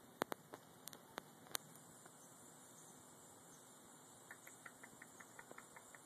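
Near silence: a faint steady hiss, with a few sharp clicks in the first second and a half and a run of soft ticks, about three to four a second, near the end.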